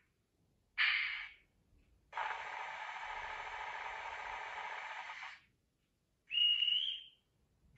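Märklin mSD3 sound decoder in a BRAWA H0 BR 232 'Ludmilla' model locomotive playing its stored sound effects through the model's small speaker: a brief burst about a second in, a steady hiss of about three seconds, then a short high whistle near the end.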